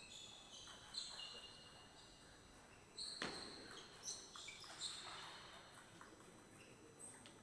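Table tennis rally: a celluloid ball clicking sharply off bats and table, several hits a second or so apart, the loudest just after three seconds in. Short high squeaks from players' shoes on the court floor come in between the hits.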